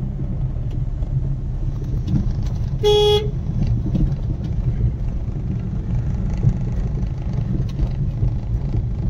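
Steady low engine and tyre rumble inside a moving car's cabin, with one short vehicle horn toot about three seconds in.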